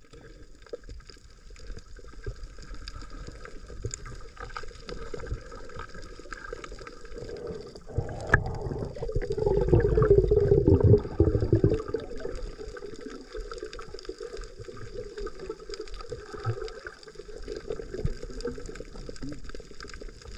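Water sloshing and gurgling, louder and rougher for a few seconds near the middle.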